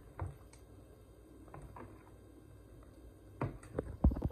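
A ladle stirring thin crepe batter in a plastic bowl, with a few light knocks of the ladle against the bowl, the loudest a dull thump near the end.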